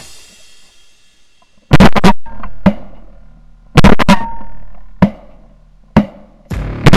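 Three loud shotgun blasts, roughly two seconds apart, each fading out over about a second, with background rock music underneath.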